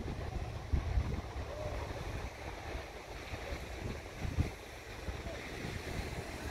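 Wind buffeting the microphone in irregular low gusts, over a steady wash of small waves breaking on the sand.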